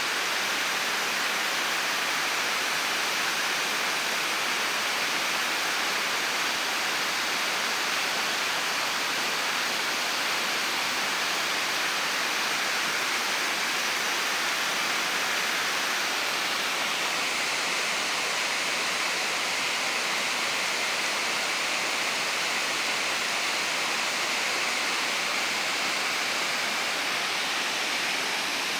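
Waterfall: a steady, continuous rush of falling water, its tone shifting slightly brighter about halfway through.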